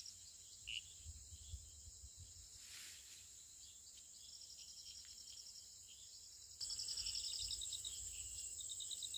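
Insects, crickets among them, chirring in a steady high-pitched chorus with rapid pulsed trills; the chorus gets louder about two-thirds of the way through.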